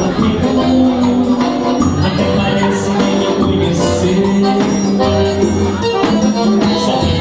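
Live dance-band music with a steady beat, a bass line and shaken percussion.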